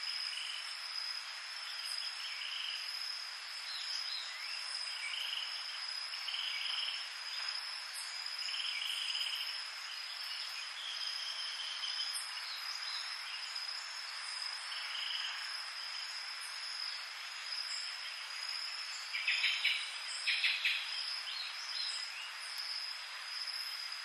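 Pre-dawn tropical night chorus: crickets and other insects keep up a steady high-pitched drone, over short repeated calls every second or two. Two louder, rapidly pulsed calls come near the end.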